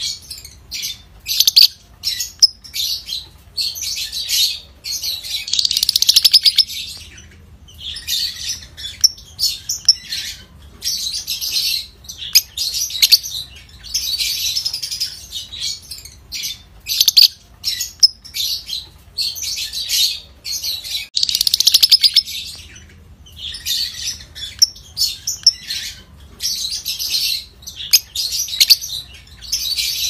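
Fischer's lovebird chattering in rapid, shrill, high-pitched bursts, some stretching to about two seconds, with short pauses between. This is the sustained chatter that lovebird keepers call 'ngekek', the sign of a bird in full song.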